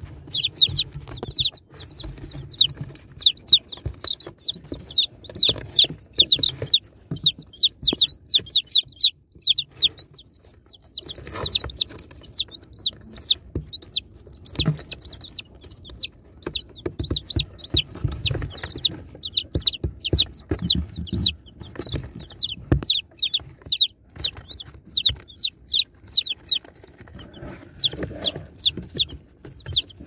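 Baby chicken chicks peeping continuously: a dense chorus of short, high-pitched, downward-slurred peeps, several a second, easing into a brief lull about eight seconds in and then picking up again. Soft low bumps and knocks sound underneath.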